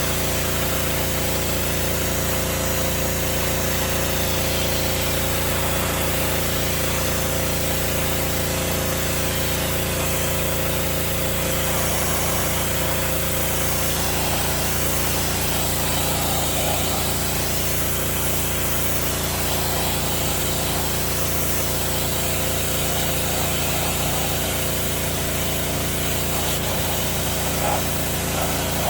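Gas pressure washer's small engine running steadily, with the hiss of its spray swelling and fading.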